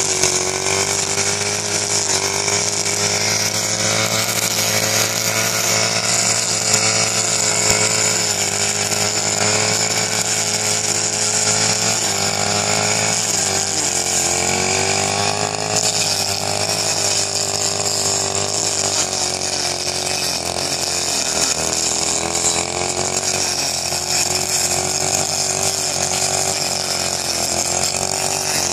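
Petrol backpack brush cutter running at high speed, its small engine holding a steady whine that dips in pitch a few times, as the cutting head sweeps through dry rice stubble.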